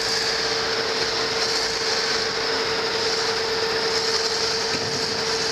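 Steady drone of heavy machinery in a ship's cargo hold: a wheel loader working loose cement and a vertical screw unloader, giving a constant hum at one unchanging pitch over an even hiss.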